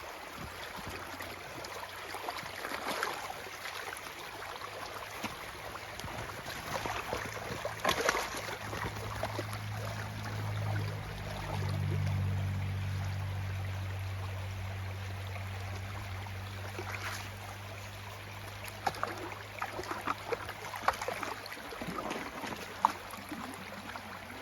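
Snowmelt floodwater running steadily down a freshly dug drainage ditch. A low droning hum swells through the middle, loudest about halfway, and fades out near the end, with a few small splashes and clicks toward the end.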